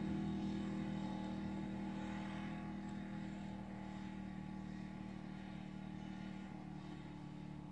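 Engine of a snowplowing vehicle running steadily at a distance, its low drone slowly growing fainter as it drives away.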